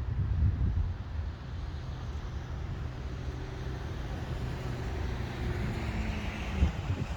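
A motor vehicle's engine running nearby: a steady low hum, with a hiss building near the end.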